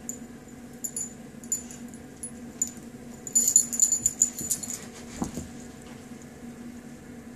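Dog's collar tags jingling in quick rattles as the dog moves, busiest a little past three seconds in, followed about five seconds in by a brief low vocal sound from the dog.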